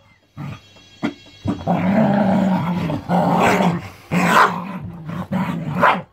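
Two springer spaniels play-fighting: a long, low growl starting about a second and a half in, followed by several short, sharp barks and snarls toward the end.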